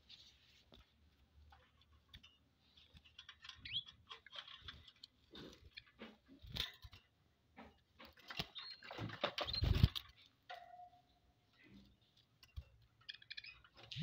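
Small cage birds giving a few faint, brief high chirps amid scattered clicks and rustling close to the microphone, with a louder rustle and thump about nine to ten seconds in.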